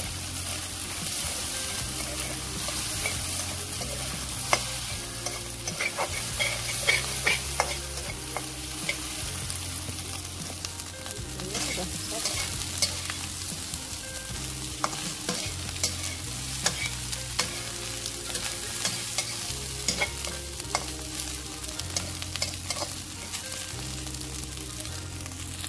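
Fried rice sizzling in a hot wok while being stirred and tossed with a metal slotted spatula, which scrapes and clicks against the pan at irregular moments.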